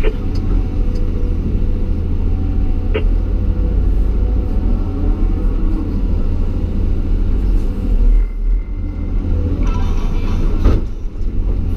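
Caterpillar 320E excavator's diesel engine running steadily under load, heard from inside the cab as a deep, continuous rumble while the arm digs and moves soil. A single sharp thump near the end.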